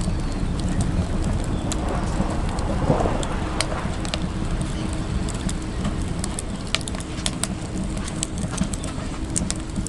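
Wood fire burning in a Petromax Loki wood stove, crackling with many sharp irregular pops over a steady low rumble.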